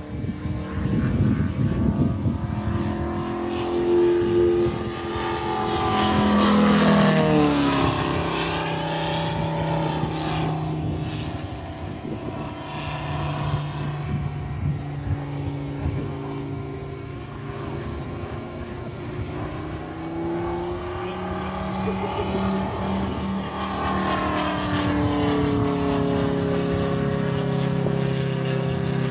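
Moki 400 radial engine of a half-scale Gee Bee R2 model aircraft running at flying power overhead. Its note falls sharply in pitch as the plane passes about seven seconds in. It rises again as the plane comes back around, near the end.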